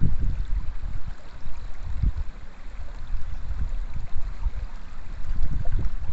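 Shallow stream flowing over stones, a steady watery hiss, with wind buffeting the microphone in uneven low gusts.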